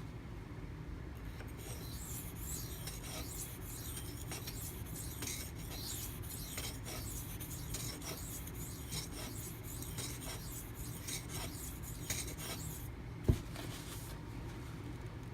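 Maxamet steel blade of a Spyderco Manix 2 knife being stroked back and forth on a silicon carbide sharpening stone, a run of rhythmic scraping strokes that stops near the end. A single sharp knock follows shortly after.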